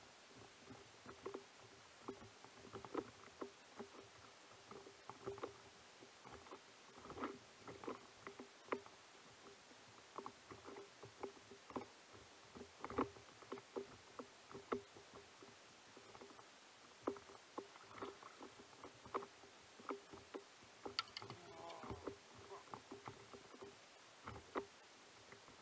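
Small waves lapping against an inflatable kayak's hull: quiet, irregular little slaps and ticks, with a faint steady hum underneath and a brief squeak a few seconds before the end.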